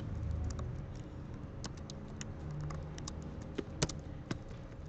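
Typing on a computer keyboard: irregular key clicks, a few sharper ones near the end.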